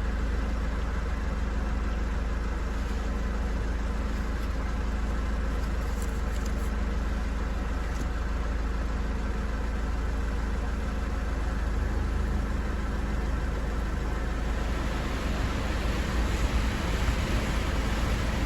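Mercedes car idling with a steady low hum. About fifteen seconds in, a rushing-air hiss swells up over it.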